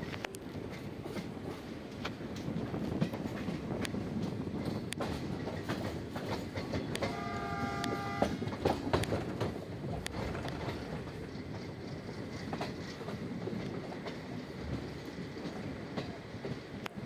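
Passenger train running, its wheels clicking over rail joints. A locomotive horn sounds once, for a little over a second, about seven seconds in.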